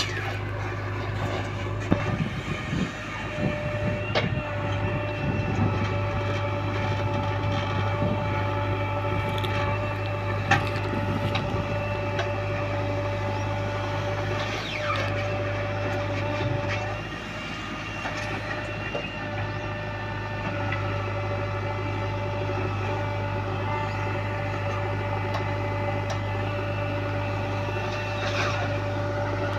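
JCB backhoe loader's diesel engine running steadily under working load, with a steady whine over the engine hum and scattered knocks and clatter from the digging and loading.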